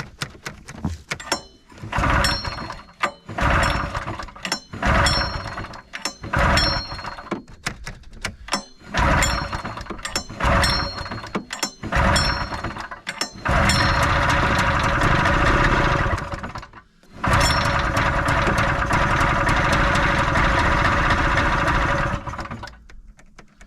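Polaris snowmobile engine being pull-started: a string of recoil-starter pulls, each firing only briefly, until it catches about halfway through. It runs for a few seconds, nearly dies, picks up again and cuts out shortly before the end. The owner blames finicky starting on the tank being low on gas.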